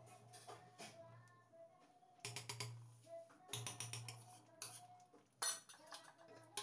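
Metal ladle clinking and scraping against a stainless steel pot while stirring thick saag: quick clusters of clinks about two and a half and three and a half seconds in, then single knocks, the loudest about five and a half seconds in. A low steady hum runs underneath.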